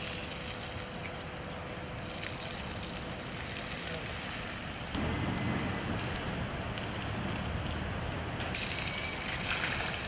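Steady rushing spray of water from a garden hose striking a dromedary camel's coat and the ground, growing louder about halfway through.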